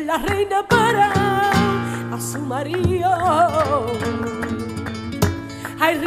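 Background music in a flamenco style: a singer holding long notes with wide vibrato over strummed and plucked guitar.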